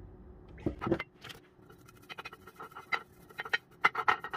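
Pastry brush spreading oil over a ceramic dish in quick, short scratchy strokes, after a couple of knocks about a second in.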